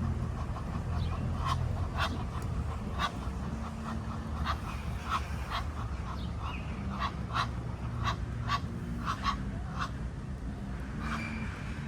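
Ducks on a pond giving short, scattered quacks and calls at irregular intervals, over a steady low rumble.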